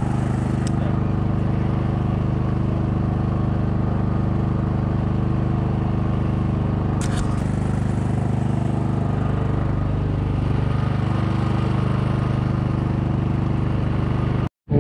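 Small engine on a bowfishing boat running at a steady, even drone, with one short tap about seven seconds in. The sound cuts out briefly near the end.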